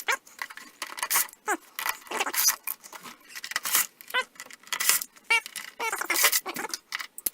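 Screws being backed out of a plastic headlight housing and handled: a rapid run of short metallic clinks, rattles and scrapes, with a few brief squeaks.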